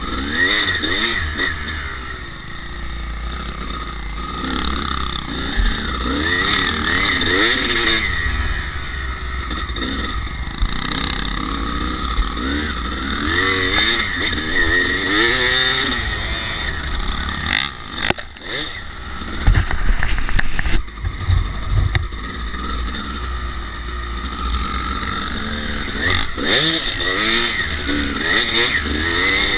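Kawasaki KX250 two-stroke dirt bike engine under way, its revs rising and falling again and again as the rider opens and closes the throttle over rough paddock ground. A cluster of knocks and rattles comes about two-thirds of the way through, as the bike bounces over bumps.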